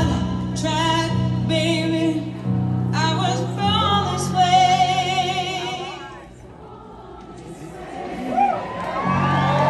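Live concert heard from the audience in a large hall: a woman sings with a strong vibrato while playing a grand piano. The music drops quieter about six seconds in and swells back near the end.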